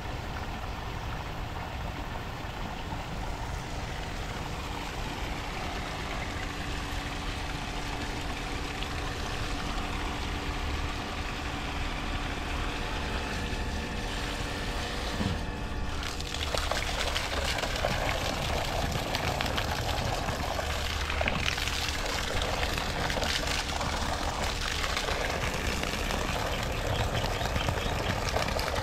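Centrifugal water pump running with a steady hum, while water splashes and gushes, growing louder about halfway through.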